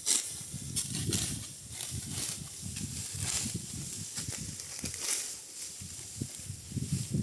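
Dry wheat stalks rustling and crunching in irregular short swishes, over a steady low rumble.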